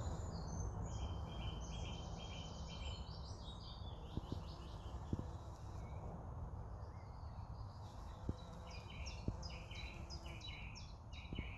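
Songbird singing: two phrases of quick repeated high notes, one in the first few seconds and one in the second half, over a steady low rumble, with a few faint ticks between them.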